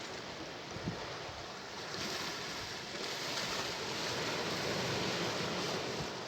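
Sea waves washing onto the shore: a steady rush of surf that swells about two seconds in and eases off near the end. A brief low thump about a second in.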